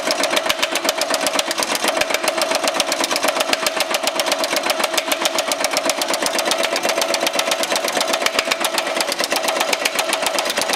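Baileigh MH-19 power hammer running, its dies striking a sheet-metal panel in a rapid, even stream of blows, with a steady ringing tone from the metal.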